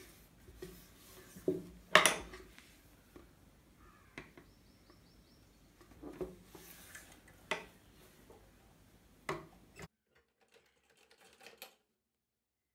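Scattered light clicks and clinks of sewing tools and fabric being handled at a tailoring table: about half a dozen separate knocks. The background drops to near silence about ten seconds in.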